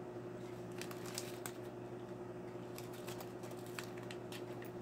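Faint scattered clicks and taps of handling as a small metal heart-shaped tray holding little heart charms is picked up and tilted, over a steady low hum.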